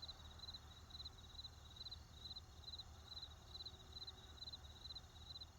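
Crickets chirping in short pulsed trills, about two to three a second, over a faint steady low rumble of distant traffic.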